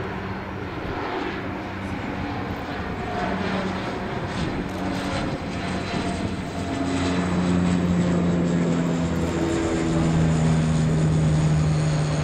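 Twin turboprop engines and propellers of a de Havilland Canada Dash 8-102 climbing out after takeoff, a steady propeller drone that grows louder from about halfway through as the plane passes nearly overhead.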